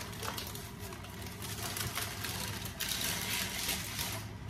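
Thin plastic storage bag rustling and crinkling as it is pulled out and spread open, loudest in the second half, over a steady low hum.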